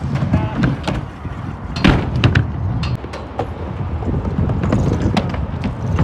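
Wheels rolling over skatepark concrete, a steady low rumble broken by scattered knocks and clacks, the loudest about two seconds in.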